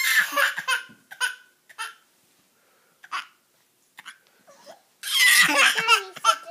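A baby crying in short sobbing bursts, with the loudest and longest wail about five seconds in.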